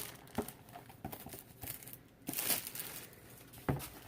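Packaging being handled and opened by hand, crinkling and rustling in short bursts, with a few light knocks.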